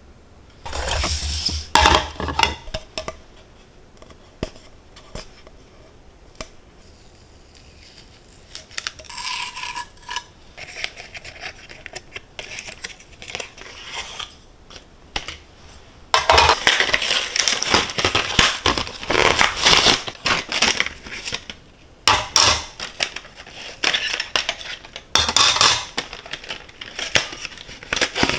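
Kitchen clatter: dishes and metal utensils clinking, scraping and knocking. A few scattered clinks come first, then a busy run of clattering from about halfway through.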